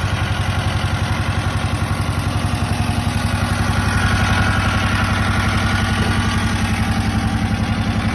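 Water-cooled 22 HP diesel engine of a patpat utility vehicle running with a steady, rapid chugging, getting a little louder for a while in the middle.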